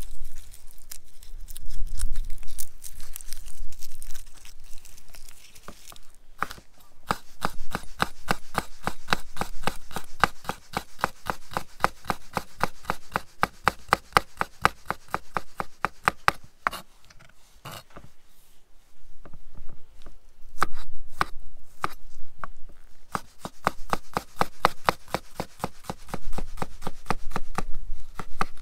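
Garlic cloves being peeled by hand, their dry papery skins rustling and tearing, then a chef's knife chopping garlic on a wooden cutting board in quick, even strokes, several a second, with a short pause a little past the middle.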